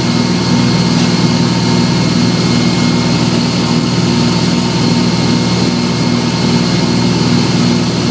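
Boat engine running steadily, a low even drone with a regular pulsing beat.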